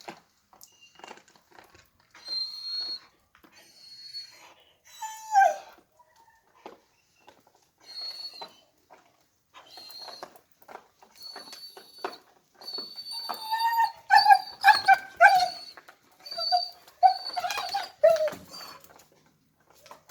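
A dog whining in thin, high-pitched cries. In the second half this turns into a quick run of short yelps. Small clicks are scattered throughout.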